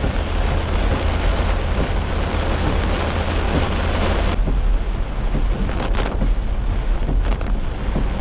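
Heavy rain pelting a moving car's roof and windshield, a loud steady hiss over the low rumble of the car on the wet road. About four seconds in the hiss abruptly loses its highest part and thins out.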